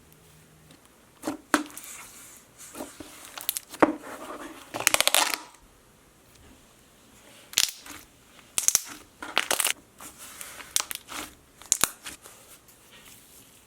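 Slime being squished and stretched by hand: irregular crackles, pops and sticky clicks, with a fast crackling run about five seconds in and sharp pops later on.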